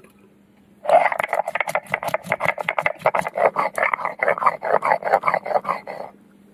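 Whole garam masala spices, cardamom and cinnamon, being crushed on a sil, a flat grinding stone, with a stone nora: a fast rhythmic rasping of stone on stone, several strokes a second. The grinding starts about a second in and stops abruptly about six seconds in.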